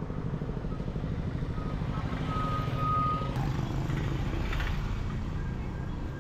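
Street traffic: a motor vehicle engine running close by, with a high steady beep that comes in short pieces and holds for about a second near the middle.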